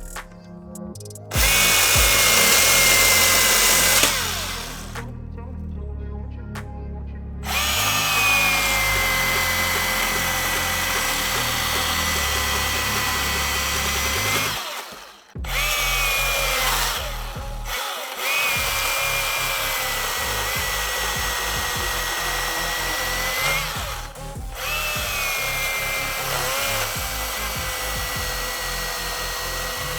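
Milwaukee M18 battery chainsaw running and cutting into a log: a steady electric motor whine that rises in pitch each time the trigger is pulled, with the saw stopping briefly several times and starting again.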